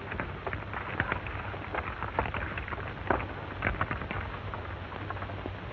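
Irregular crackling and rustling of a group's feet through dry leaves and brush, over the steady low hum of a 1930s optical film soundtrack.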